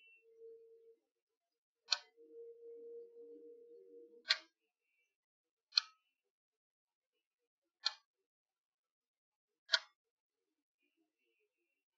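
Five sharp single clicks, each one to two seconds apart, from handling the drone's remote controller as its camera zoom is worked. A faint steady tone sounds under them during the first four seconds.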